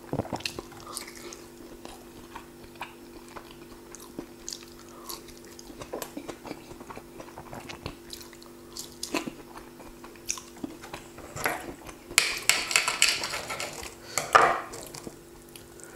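A person chewing and biting into a pan-fried cauliflower pancake, with small scattered mouth clicks and crunches, over a faint steady hum. About twelve seconds in, a knife scrapes and cuts through the pancake on the plate for a second or so.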